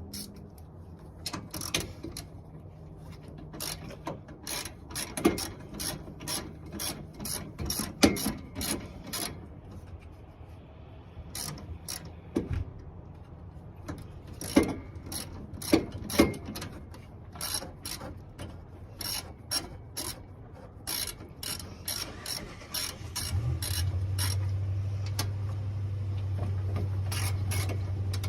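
Hand ratchet wrench clicking in repeated runs as bolts on a car's radiator fan assembly are turned. About 23 seconds in a steady low hum starts up underneath.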